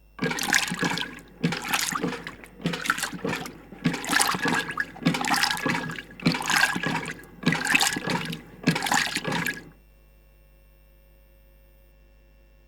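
Clogged-toilet sound effect: about eight bursts of water noise, roughly a second apart, stopping about ten seconds in.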